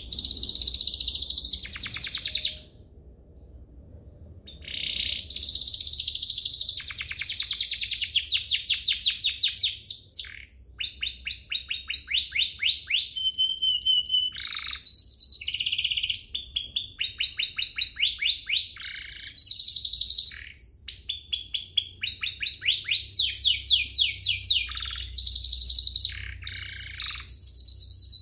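Domestic canary singing: fast rolling trills of rapidly repeated notes, switching from one trill to the next. After a short phrase it pauses for about two seconds, then sings almost without a break.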